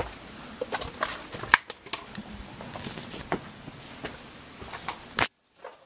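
Footsteps and scuffs of hikers scrambling over rocks, with scattered small clicks and knocks; a sharp click about five seconds in, then the sound drops out briefly.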